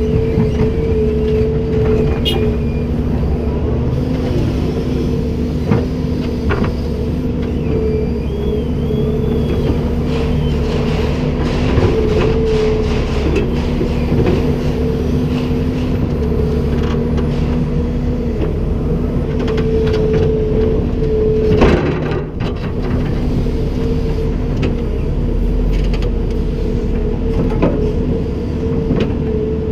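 Komatsu PC290-10 excavator's diesel engine running steadily, with scattered metallic knocks and clanks of the machine at work. The loudest knock comes about 22 seconds in.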